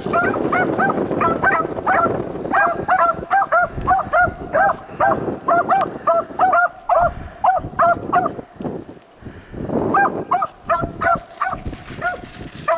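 Beagles giving tongue on a rabbit's track: a rapid run of short, yelping bays several a second, breaking off briefly past the middle and then picking up again. Wind rumbles on the microphone at the start and again near the break.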